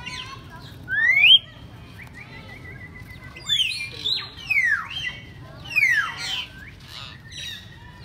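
Several birds calling in an aviary: loud whistled notes sliding up and down. A sharply rising whistle about a second in is the loudest, then a run of falling whistles from about three and a half to six seconds in.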